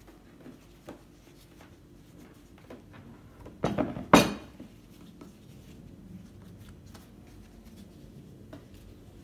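Thin yufka pastry sheets rustling and crinkling as hands fold them over the filling in a baking dish, with a short, loud clatter about four seconds in.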